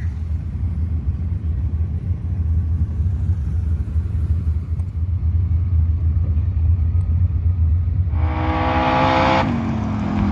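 A low, steady engine rumble, then about eight seconds in a car engine revs hard for over a second and lets off, its pitch sliding down.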